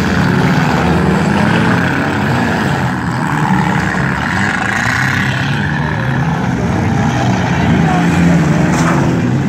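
Several demolition derby cars' engines running and revving together, their pitches rising and falling as the cars push and ram each other.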